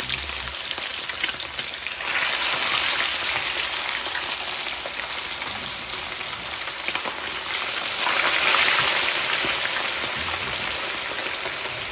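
Fish frying in a pot of very hot oil: a dense, steady crackling sizzle that swells about two seconds in and again around eight seconds. The oil is hotter than the cook intended.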